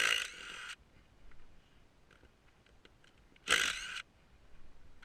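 A power tool fitted with a 14 mm socket whirring in short bursts as it spins out the ATV's wheel bolts: one burst ends just after the start, and a second half-second burst comes about three and a half seconds in, with a few faint clicks between them.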